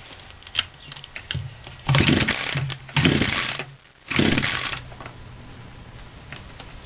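Craftsman two-stroke chainsaw engine running at a steady idle, with three louder surges about a second apart from about two seconds in.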